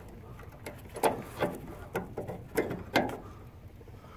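Compressed door hinge spring, bound with zip ties, clicking and knocking against the steel hinge arms as it is pushed into place by hand: about five sharp metallic clicks, roughly half a second apart.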